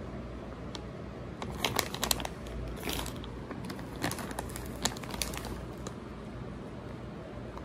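Plastic bags of frozen vegetables crinkling as they are handled, in a few short bursts of crackles through the middle, over a steady low background hum.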